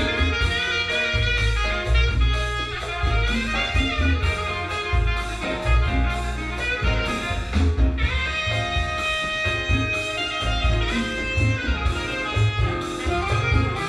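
Recorded jazz-like music with brass instruments over a pulsing bass, played back through a 1940s Kofler Radio Bassano cinema tube amplifier and horn loudspeakers.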